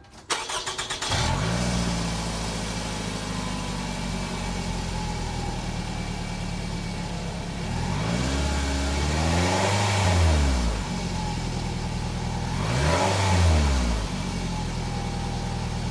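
2005 Toyota Camry's 2.4-litre 2AZ-FE inline-four cranking and starting about a second in, then idling, with two blips of the throttle that rise and fall in pitch. The exhaust is stock, with no turbo whistle fitted yet.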